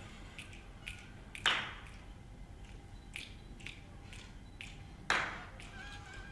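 Scattered finger snaps from several people in an audience, a few per second at an uneven rhythm, with two louder snaps about a second and a half in and about five seconds in that ring on in the hall.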